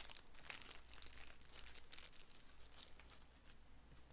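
Faint crinkling and rustling of thin plastic card sleeves being handled and pulled from their pack, a run of small irregular crackles.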